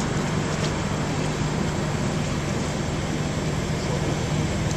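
Steady mechanical drone with a low hum under a broad hiss, like a running engine.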